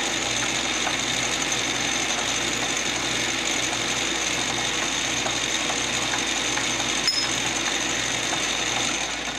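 A small metal lathe running steadily while a drill bit in the tailstock bores into brass bar stock, a constant motor whine with several high steady tones. There is one click about seven seconds in, and the lathe starts to die away near the end.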